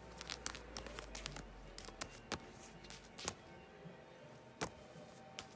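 Faint music playing, with irregular light taps and clicks close to the microphone, the sharpest a little over three seconds in and again past four and a half seconds.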